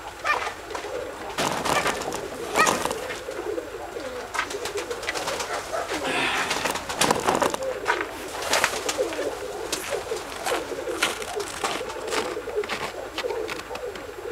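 Domestic pigeons cooing, a continuous wavering murmur, with frequent sharp clicks, knocks and rustles among them at irregular moments.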